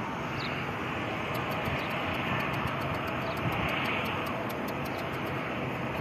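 Steady outdoor background noise, an even rumble and hiss, with faint fast regular ticking high up from about a second in.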